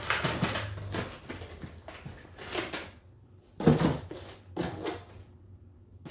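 Cardboard and clear plastic blister packaging of a miniature figure being handled, in several rustling, crinkling bursts, with one sharp knock about two-thirds of the way through.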